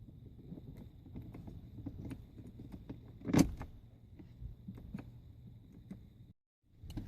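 Scattered light clicks and knocks of hands working on parts of a pickup truck, with one much louder knock about three and a half seconds in. The sound drops out briefly near the end.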